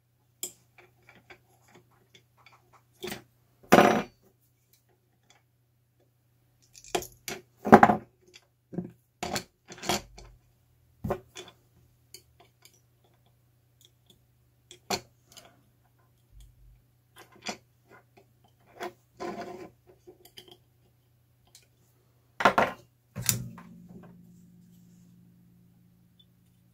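Small metal tools clicking and clinking against a cable-TV tap's circuit board and metal housing as tweezers and a soldering iron are handled, in irregular sharp taps. A faint steady low hum runs underneath.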